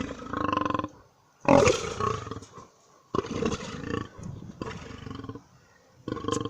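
Lion roaring in a series of about five calls roughly a second and a half apart, the second call the loudest.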